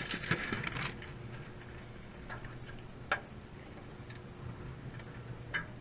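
Fish dropped into a plastic cooler and the lid shut: a short clatter of handling at the start, then a sharp click about three seconds in and another near the end, over a steady low hum.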